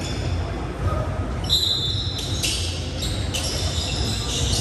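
Sounds of a basketball game in a gym: the ball bouncing and sneakers squeaking in short bursts on the hardwood floor, echoing in the large hall.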